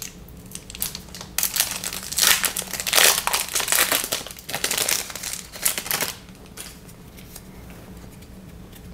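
A foil trading-card pack wrapper crinkling and tearing as it is opened. The rustling comes in bursts for about the first six seconds, then dies down.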